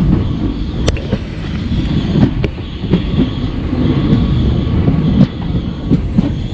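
Moving passenger train heard from beside the coach: a continuous heavy rumble of steel wheels running on the rails, with a few sharp clacks from the rail joints scattered through it.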